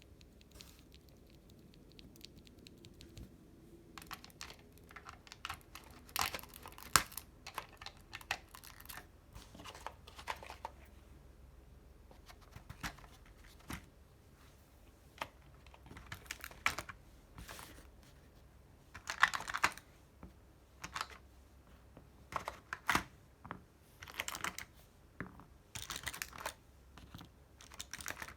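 Akko CS Matcha Green mechanical key switches being pressed: irregular clacking keystrokes, some single and some in quick flurries of typing.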